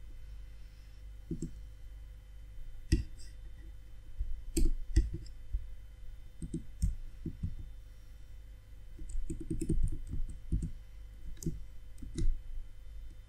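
Computer keyboard typing: irregular key clicks, a few at a time with pauses between, and a quicker run of keystrokes about nine to ten seconds in.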